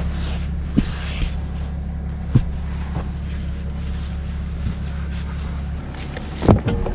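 Chevy Silverado pickup engine idling steadily with a low hum, the truck left running for its heater. A few soft knocks come from the foam mattress topper being laid across the back seat, and a louder knock comes near the end.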